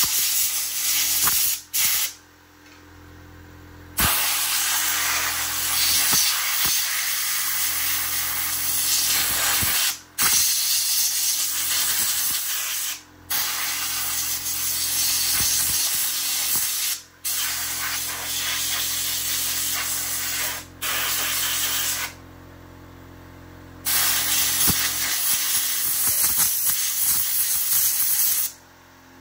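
Compressed air blasting from an air-compressor blow gun as it blows dirt out of a chainsaw: long loud hissing bursts that cut off sharply and start again several times, with a longer pause about three-quarters of the way through. A faint low steady hum runs underneath.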